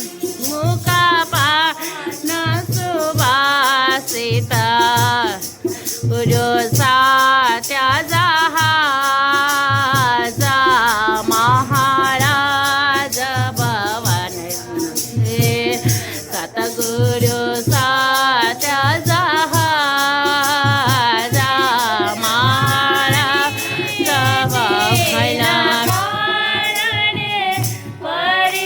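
Music: a voice singing a melody over a steady low beat and rapid high rattling percussion.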